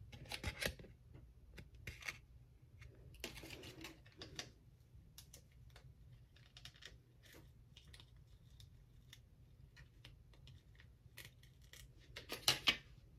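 Faint, scattered small clicks and short rustles of hands handling a false-eyelash case and tray, with a louder cluster of clicks near the end.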